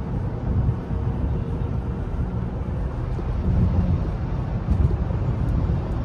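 Tyre and road noise heard inside the cabin of a Rivian R1T electric pickup at highway speed on new Falken Wildpeak AT all-terrain tyres: a steady low rumble.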